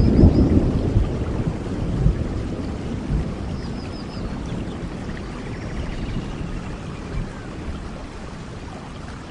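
Tropical rain falling steadily, with a low rumble of thunder dying away over the first few seconds. Faint bird chirps come twice, near the start and about four seconds in.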